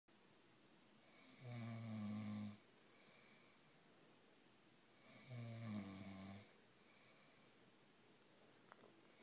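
A man snoring in his sleep: two low snores about four seconds apart, each lasting about a second.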